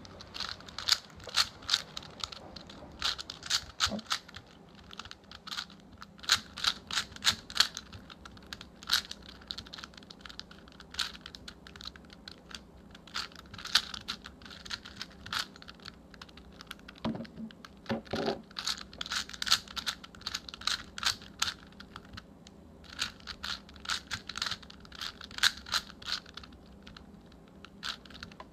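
A 4x4 Rubik's Cube being turned fast: rapid plastic clicks and clacks of the layers snapping round, in bursts broken by short pauses.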